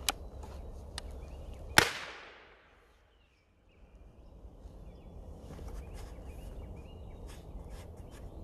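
A percussion cap fired on the nipple of a .54 Greene twist-action rifle: one sharp pop with a short ringing tail, after two light clicks from the lock. It is a cap fired to clear the flash channel before loading. Several faint clicks follow later.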